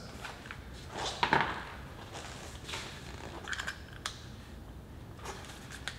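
Scattered small clicks and rattles of pressure washer quick-connect nozzle tips and fittings being handled and fitted to the wand, with a louder clatter about a second in.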